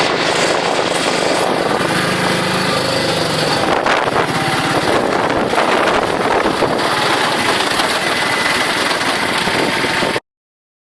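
Auto rickshaw's small engine running steadily on the move, under a loud rush of wind and road noise; it cuts off suddenly about ten seconds in.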